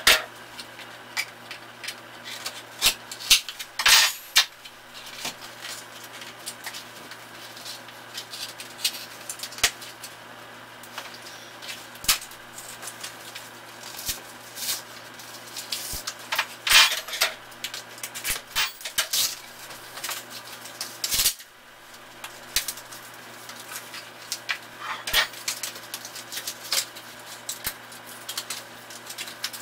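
A cardboard mailing box being handled and opened by hand on a wooden desk: scattered clicks, taps and scrapes, with a few longer rasping, tearing noises, over a steady low hum.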